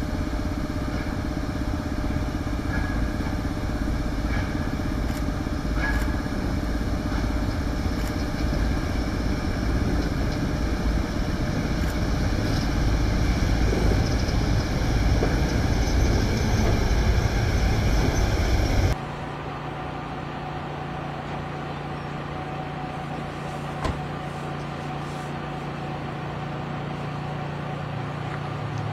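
Passenger train rolling slowly into a station platform: a low rumble that grows louder, cutting off suddenly about two-thirds through. After that comes a quieter steady low hum with a single light knock.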